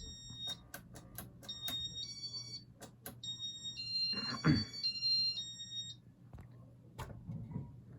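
A series of sharp clicks and short, high electronic beeps stepping between a few pitches, loudest a little past the middle, over a faint steady low hum.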